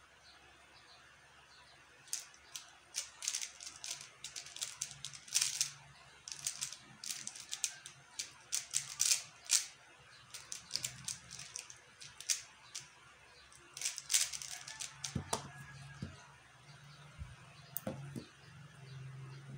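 QiYi X-Man Tornado V1 3x3 speed cube turned rapidly through a solve: a fast run of plastic clicks and clacks starting about two seconds in and lasting roughly thirteen seconds, followed by a few duller knocks against the table.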